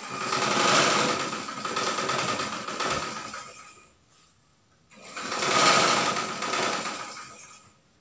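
Electric sewing machine running in two bursts of about four and three seconds, each starting sharply and trailing off.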